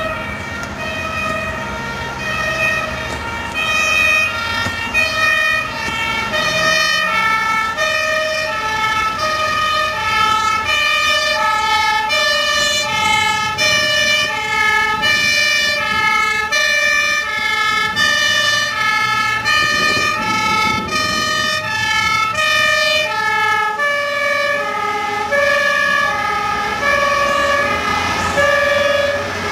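Dutch fire engine's two-tone siren sounding continuously, alternating between a high and a low note about every half second. A second siren overlaps it for several seconds in the middle. The notes drop in pitch near the end as the truck pulls away.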